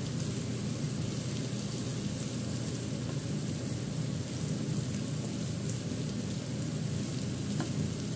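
Chopped meat and onions sizzling steadily in a stainless steel frying pan over a gas flame while being stirred with a wooden spoon, with a low steady hum underneath.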